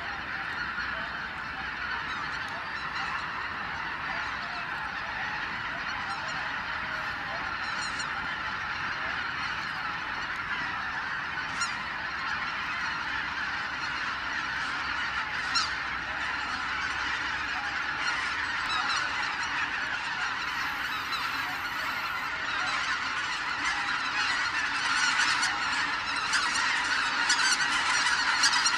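A large flock of greater white-fronted geese calling continuously, a dense chorus of many honking voices at once, growing louder in the last few seconds as the birds lift off the lake at dawn.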